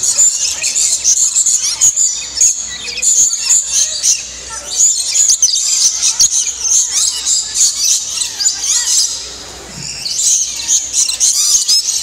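A flock of rainbow lorikeets chattering in dense, shrill, high-pitched calls as they feed from a cup of nectar, with a brief lull about nine seconds in.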